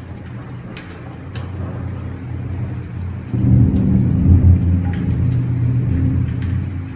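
Thunder following a nearby lightning strike: a low rumble that grows suddenly loud a little over three seconds in, is loudest about a second later, then slowly eases off, over a steady low hum.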